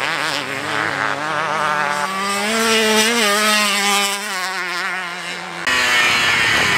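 Motocross bikes racing on the track, their engines rising and falling in pitch as the riders work the throttle. Near the end the sound cuts abruptly to a louder rushing noise.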